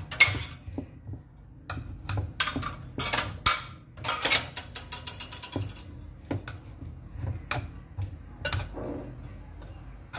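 Wooden chopsticks scraping and rubbing against the inside of a wooden mortar as pounded dried pork is churned and fluffed into pork floss. The strokes come as a quick, irregular run of scrapes and clicks, thickest a couple of seconds in.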